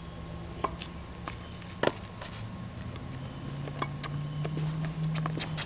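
Tennis rally on a hard court: sharp pops of the ball coming off rackets and bouncing on the court, spaced irregularly, the loudest a little under two seconds in. A low steady hum runs underneath.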